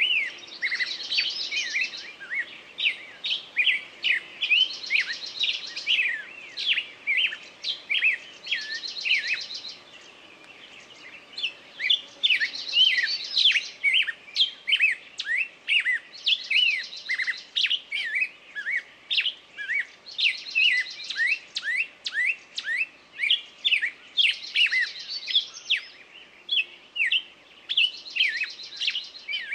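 A chorus of songbirds: many quick chirps and whistled notes overlapping, with a short buzzy trill from one bird repeating about every four seconds and a brief lull about ten seconds in.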